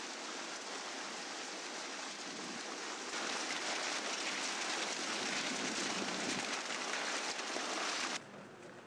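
Chile pepper cleaning machine running, with dried chile pods, stems and sticks tumbling and rattling through its rotating plates as an even rushing noise. It gets louder about three seconds in and drops off abruptly near the end.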